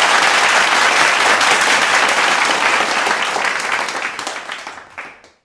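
Applause, a dense clatter of many hands clapping, that fades out over the last second and a half and stops about five seconds in.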